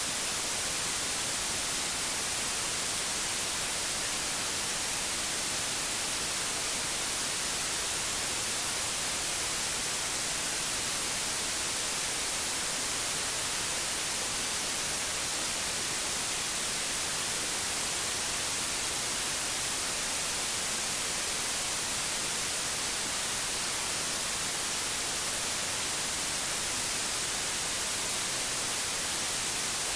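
Steady white noise: an even, unbroken hiss, brightest in the high treble, with no changes.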